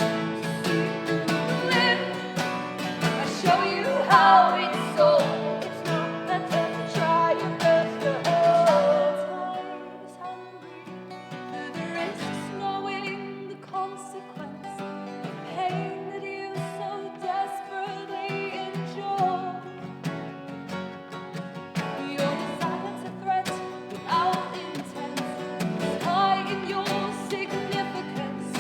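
Live acoustic guitars and singing in a band performance. Loud for about the first nine seconds, then dropping to a quieter passage before building back up in the last several seconds.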